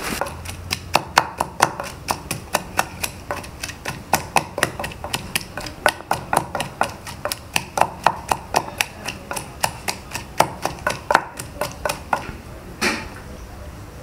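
Ginger and garlic being struck over and over with a kitchen utensil in steady, sharp knocks, about three a second, stopping near the end with one last knock.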